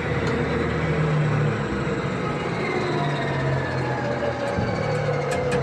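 A truck engine running steadily.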